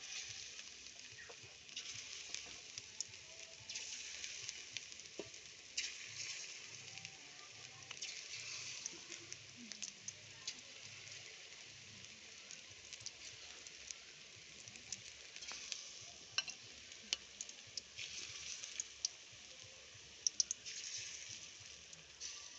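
Fish-roe fritters frying in oil in a kadai: a steady sizzle with sharp crackling pops, swelling and easing every couple of seconds.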